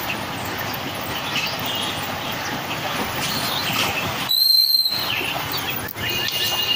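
Steady wind and road noise from a moving motorcycle riding behind a truck in traffic. About four seconds in, a short high-pitched ring cuts through for about half a second.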